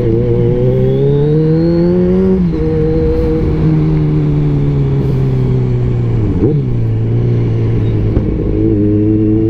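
Kawasaki Z1000's inline-four running through a single aftermarket exhaust while the bike is ridden. The revs rise for about two seconds and drop suddenly at an upshift, then the engine runs on with revs slowly easing, with a brief dip about six and a half seconds in and a small rise near the end.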